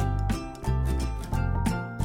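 Upbeat background music with a steady beat and held bass notes.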